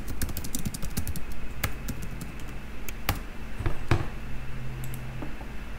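Typing on a computer keyboard: a quick run of keystrokes in the first second and a half, then a few single clicks spaced out after it.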